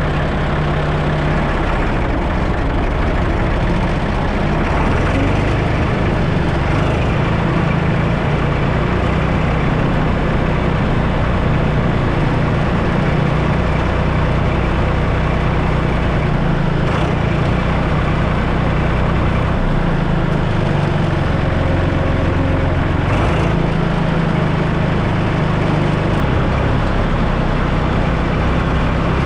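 Tractor engine running steadily under load, a continuous low drone.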